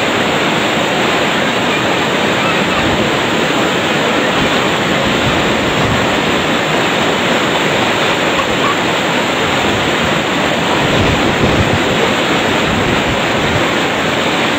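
Steady rush of fast-flowing water, churned up around a wading elephant.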